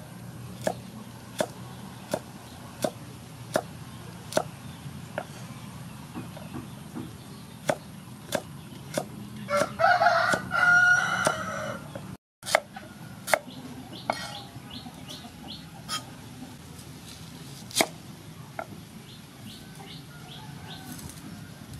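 Cleaver chopping carrot on a wooden chopping board: steady strokes about one every three-quarters of a second. A rooster crows once about ten seconds in, the loudest sound.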